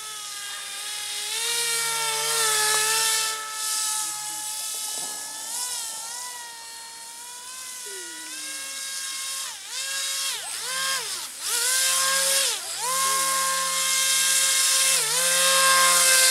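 AquaCraft Cajun Commander RC airboat's electric motor and caged propeller whining, powered by a 3S LiPo pack. The pitch holds fairly steady at first, then drops and swells sharply several times in the second half as the throttle is eased off and opened again.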